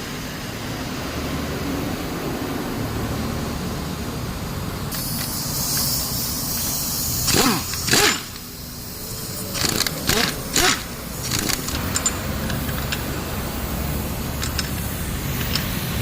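Steady workshop hum, with a handful of sharp metal knocks and scrapes about seven to eleven seconds in as the front strut assembly with its freshly greased mount bearing is handled and set back into place.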